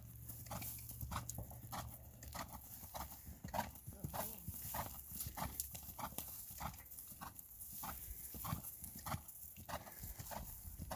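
Horse's hooves striking dry grass turf in a steady, even rhythm at the canter.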